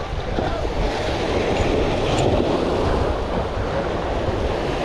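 Steady wind rumbling on the microphone over small waves washing against the jetty rocks.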